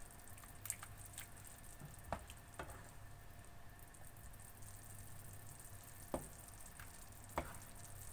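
A spatula stirring a thick, creamy sauce in a non-stick frying pan as it heats toward a boil: soft scrapes with a few short taps against the pan, over a faint steady hum.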